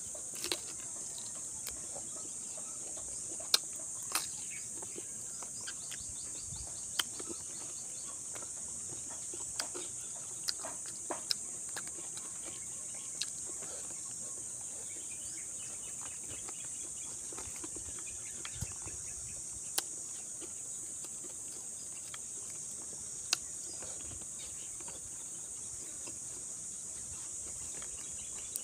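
A person eating crispy deep-fried pork leg with bare hands, chewing and smacking, with scattered sharp crunches and clicks. Under it runs a steady high-pitched insect drone.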